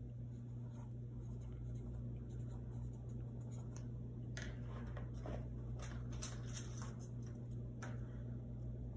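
Marker scratching on a paper notepad as a name is written, then small clicks and rustles of folded paper slips being picked from a wooden bowl about four to six seconds in, over a steady low hum.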